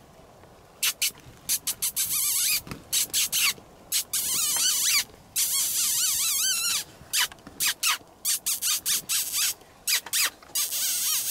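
A rapid series of shrill, harsh animal calls starting about a second in, some with a quavering, wavering pitch, broken by short gaps.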